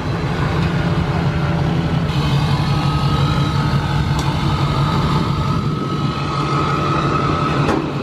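Diesel pickup truck engine running steadily, with a thin high whistle over it from about two seconds in until near the end.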